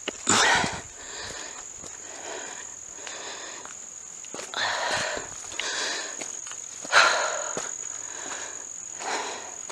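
A steady high-pitched insect drone, with about five irregular rustling, scuffing noises from a hiker climbing the trail. The loudest come just after the start and about seven seconds in.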